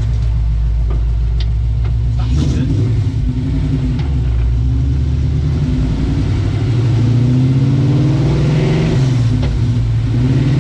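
Rebuilt Coyote V8 engine of a Ford Mustang running while being driven, its note rising twice in the second half as it accelerates.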